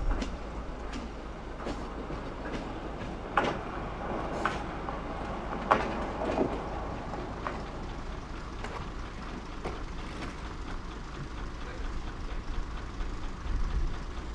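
Kiha 10 rail bus pulling in over jointed track, its wheels clicking over the rail joints, the clicks coming further apart as it slows to a stop about halfway through.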